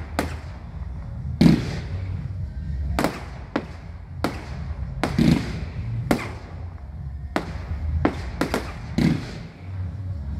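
Aerial fireworks going off: a run of about a dozen sharp bangs at uneven intervals, some in quick pairs, as shells and comets burst overhead.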